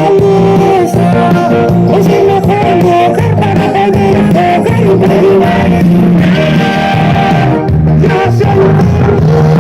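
A song with singing over guitar-led band accompaniment and a steady beat.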